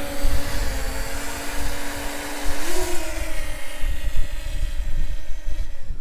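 Quadcopter drone's propellers whining as it takes off, the pitch rising briefly about three seconds in and then fading as it flies away. Wind buffets the microphone with a gusty low rumble.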